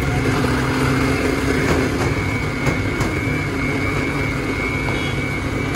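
Countertop electric blender running steadily with a high motor whine over a lower hum, cutting off near the end; a few light clicks along with it.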